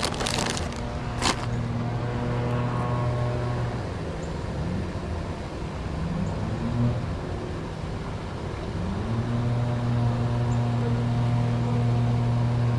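An engine running steadily with a low hum, its pitch dropping and rising again a few times as the revs change; a sharp click about a second in.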